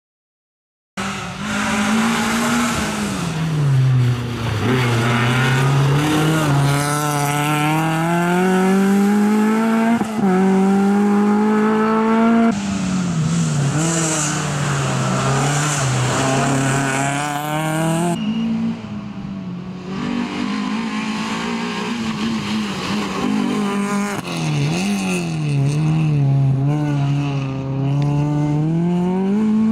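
Peugeot 306 rally car's engine revving hard, starting about a second in, its pitch climbing and dropping again and again as it accelerates, shifts gear and slows for turns.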